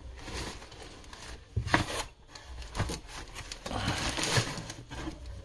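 Hands handling a pair of sneakers: rustling and rubbing against the shoes, with a few sharp knocks, the loudest about a second and a half in.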